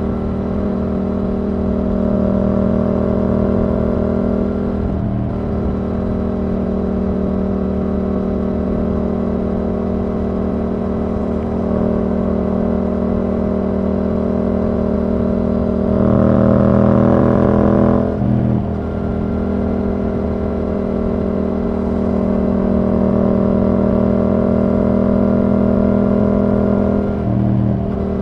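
Yamaha R7's parallel-twin engine through a Yoshimura R77 exhaust with the dB killer removed, running at steady revs while riding. About two-thirds of the way through the throttle opens for a louder couple of seconds, then eases off; the note dips briefly twice, once early and once near the end.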